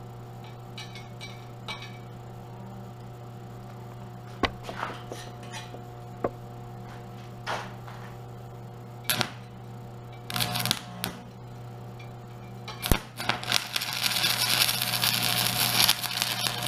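Stick-welding arc on aluminum, a 1/8-inch Hobart 4043 electrode at 90 amps DCEP: a few sharp clicks and brief sputters as the rod is touched to the work, then about 13 seconds in the arc catches and crackles steadily. A steady low hum runs underneath.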